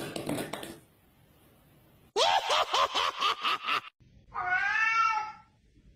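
Puppy crying: a quick run of about eight short yelps, then one long whining cry that wavers in pitch, about a second long.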